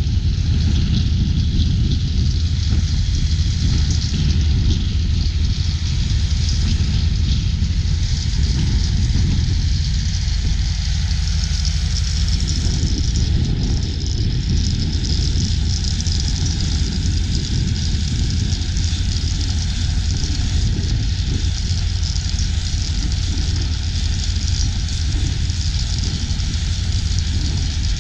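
Steady machine drone with a heavy low rumble, unchanging throughout.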